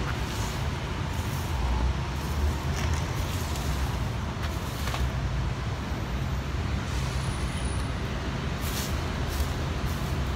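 Steady low outdoor rumble on a hand-held phone microphone, with a few faint clicks.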